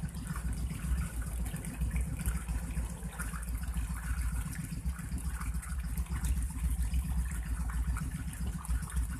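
1995 Suzuki Intruder 1400's V-twin engine idling steadily through Vance & Hines exhaust pipes while warming up from a cold start, a low uneven rumble.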